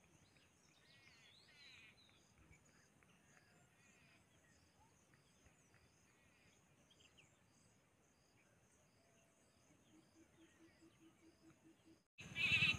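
Quiet rural outdoor ambience: faint bird chirps in the first couple of seconds over a faint high chirp repeating steadily, with a low regular pulsing near the end. A much louder sound starts abruptly just before the end.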